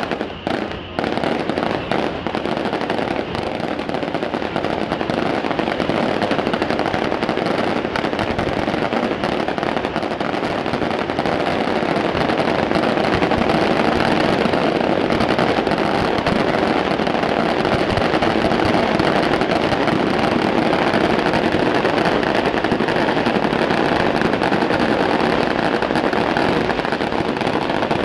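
Fireworks and firecrackers going off in a dense, continuous barrage of rapid crackling bangs, getting a little louder and thicker about halfway through.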